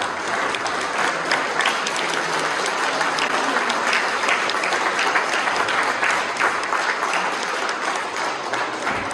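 Audience applauding, a dense continuous clapping that eases off near the end.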